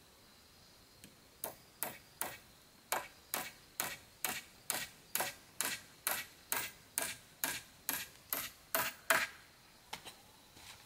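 Hammer driving a nail into a wooden beam: about twenty quick, even strikes, roughly two and a half a second, the last one the loudest, followed by a few lighter taps.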